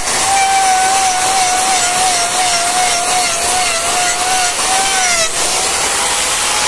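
Angle grinder with an abrasive disc running and grinding down the horn of a bull's hoof during corrective hoof trimming. Its steady whine wavers and dips about five seconds in, over a rasping grinding hiss.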